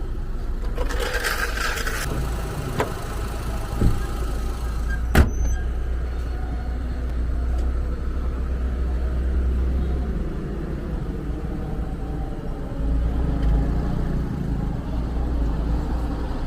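A car engine running steadily with a low rumble. There is a short hiss about a second in, and a few sharp knocks or clicks at about three, four and five seconds.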